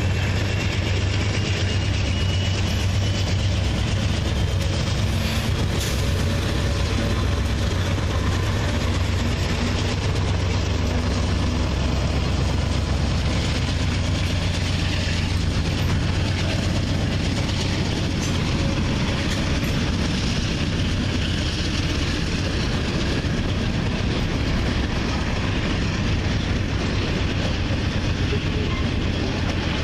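A long freight train rolling past at steady speed. Its last diesel locomotive goes by at the start, then tank cars, covered hoppers and boxcars run over the rails with a steady low rumble.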